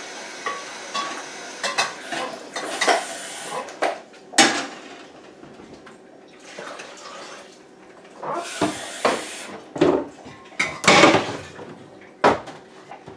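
Kitchenware clattering: pans, utensils and cutlery knocked and set down on a counter and stovetop in a string of short, irregular clanks, with a cabinet opened near the end.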